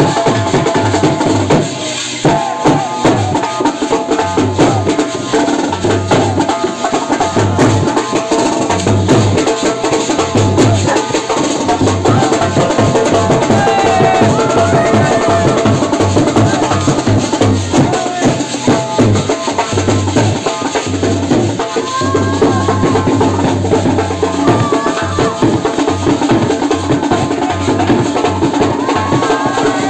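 Wedding brass band playing: a large side drum is beaten in a fast, steady rhythm while a trumpet plays a wavering tune over it, with voices of the crowd mixed in.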